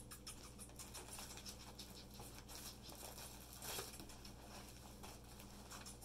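Faint crinkling and rustling of a clear plastic bag being handled, with a sharper rustle a little before four seconds in.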